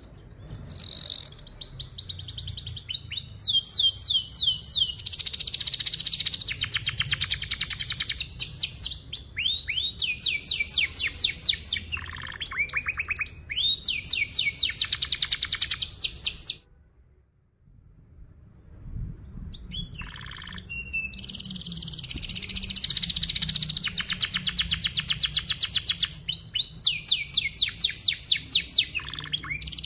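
Domestic canary singing a long song of tight, fast rolling trills and chirps. It breaks off for a moment a little past halfway, then starts again.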